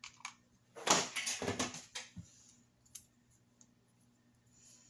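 Hands handling a tulle-wrapped artificial rose corsage. About a second in there is a second-long burst of rustling and crinkling, with a few light clicks and taps around it.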